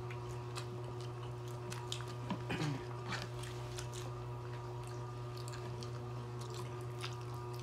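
Mouth sounds of eating fried chicken and spaghetti: chewing, small bites and crunches, and scattered wet clicks, over a steady low electrical hum.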